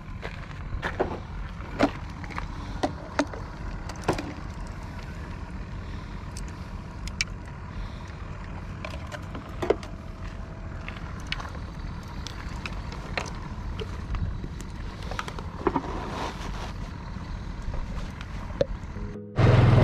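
Scattered clicks and knocks of fishing gear being handled at a parked motor scooter, over a steady low rumble. Just before the end the sound changes suddenly to the louder, steady low drone of the scooter under way.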